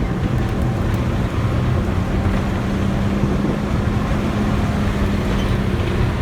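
A motor vehicle's engine running steadily with a low hum, over continuous road and wind noise.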